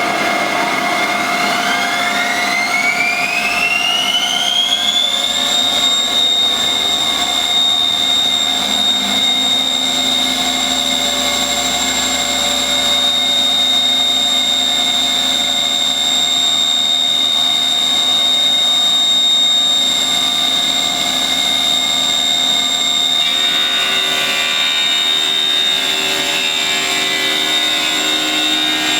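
Glass CNC machining center's spindle whining as it spins up, its pitch rising for about five seconds and then holding a steady high whine. Near the end a rougher, busier layer joins the whine.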